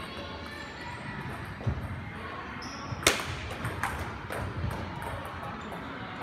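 A few scattered table tennis ball hits: a low knock, then one sharp loud click about three seconds in followed by a few lighter clicks, over steady hall noise with faint music.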